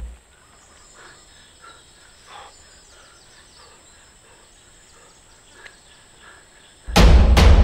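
Faint outdoor forest ambience with scattered short bird calls and faint insect ticking. Near the end, loud drum-heavy music comes in.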